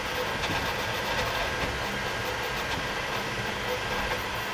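Elegoo Centauri Carbon 3D printer running a print: a steady mechanical whir and rattle with a faint high whine.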